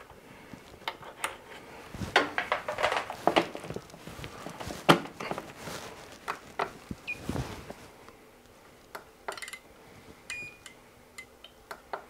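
Light clicks and knocks of wires and connectors being handled on the washing machine element's terminals, then button presses on a portable appliance tester with short electronic beeps about seven and ten seconds in as the earth test runs.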